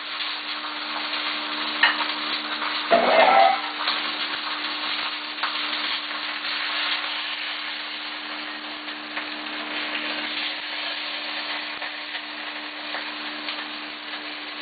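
Black bear roast searing in hot oil in a pan: a steady sizzle with a few clicks and a brief louder sound about three seconds in.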